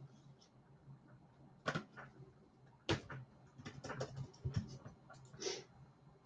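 Irregular clicks and taps of a computer keyboard being typed on, a quick cluster about three and a half to five seconds in, over a faint steady hum.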